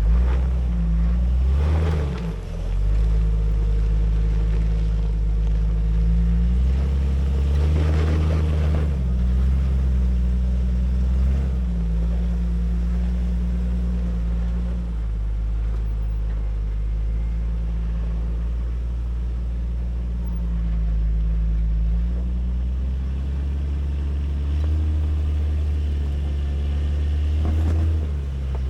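Jeep engine working through changing revs as it climbs a very steep, loose hill, with a few short bursts of rough noise.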